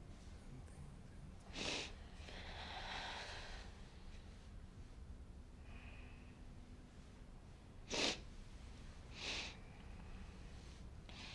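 Faint sniffs and shaky breaths of a person crying, with short sharp sniffs about two seconds in, twice near eight and nine seconds, and again at the end, and a longer breath out just after the first.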